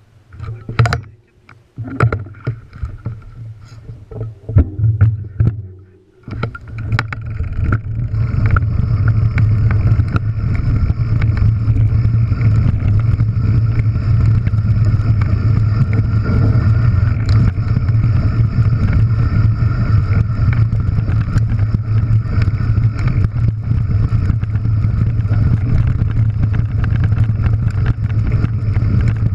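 Mountain bike rolling fast down a loose gravel and scree track: from about six seconds in, a loud steady rush of wind buffeting the camera microphone mixed with tyre crunch and rattle. Before that, a few scattered knocks and clicks from the bike.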